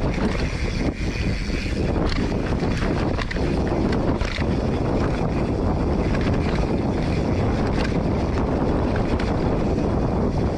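Wind rushing over a handlebar-mounted camera's microphone as a Polygon Siskiu T7 mountain bike rolls along a dirt singletrack, with steady tyre rumble and short knocks and rattles from the bike over bumps.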